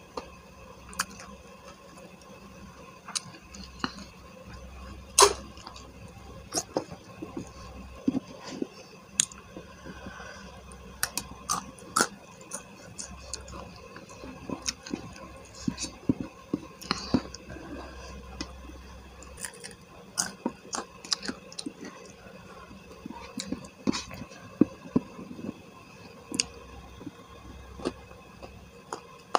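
Close-up eating sounds of ayam geprek (smashed fried chicken) with rice, eaten by hand: chewing with irregular small clicks and crackles, the loudest about five seconds in.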